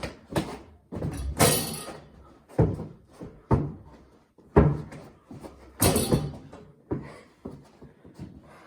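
Basketball being dribbled and bouncing on a hard indoor floor: irregular thuds, with two louder bangs followed by a rattle about a second and a half in and about six seconds in.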